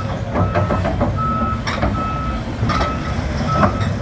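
Volvo EC550E crawler excavator's travel alarm beeping steadily, about once every three-quarters of a second, over the low running of its diesel engine, with a few sharp metallic clanks from the machine as it works.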